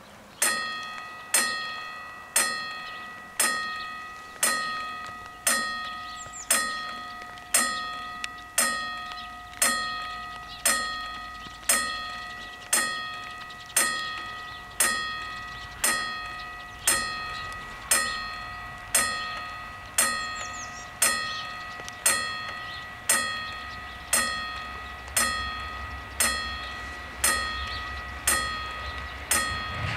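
Level-crossing warning bell striking about once a second, each stroke ringing with several clear tones and dying away: the crossing has just been activated for an approaching train. A low rumble builds in the last several seconds as the train draws near.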